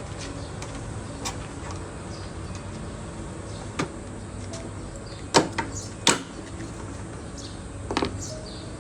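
Sharp clicks and knocks, about four, from plastic washing-machine parts being handled during disassembly, the loudest two close together past the middle. Birds chirp faintly behind.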